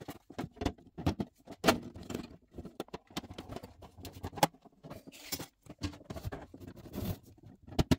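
Hard white plastic panels of a Moreart model shipping-container display case being handled and fitted together: an irregular run of clicks, taps and knocks, the loudest two about two and four and a half seconds in, with a brief scrape a little after five seconds.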